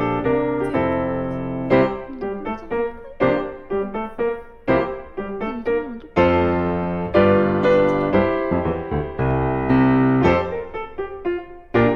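Piano music playing: a soft melody of struck notes over sustained chords.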